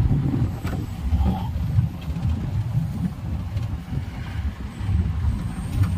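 Rumble of a moving vehicle on a rough road, heard from on board, uneven and strongest in the low end.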